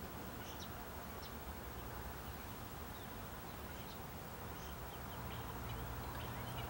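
Faint outdoor ambience: scattered short, high chirps of distant birds over a low steady rumble.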